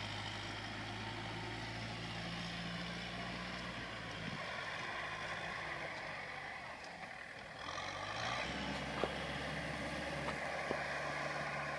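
Tractor diesel engine running steadily under load as the tractor pushes through deep paddy mud. The engine sound fades for a few seconds in the middle, then comes back about two-thirds of the way through and holds steady, with two or three sharp ticks near the end.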